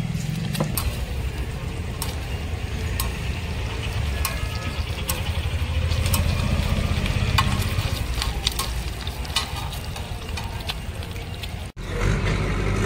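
Peeled boiled eggs frying in oil on a large flat iron tawa, sizzling with scattered sharp pops while a metal spatula scrapes and taps against the iron, over a steady low rumble of street traffic.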